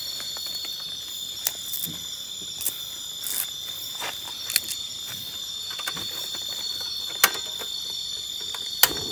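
Steady chorus of night insects, a continuous high shrill trill. A few sharp clicks and taps of hands working over the pan stand out above it, the loudest near the end.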